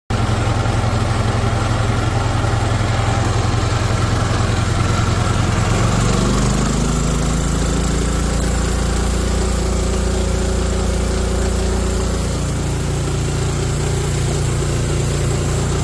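Small gasoline DC generator set's engine running steadily. About six seconds in it speeds up, the pitch gliding upward, then holds at the higher speed.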